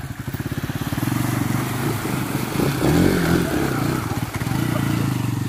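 Bajaj Pulsar NS200's single-cylinder engine throbbing under load as the motorcycle churns through deep mud, with the revs rising about halfway through and then easing back.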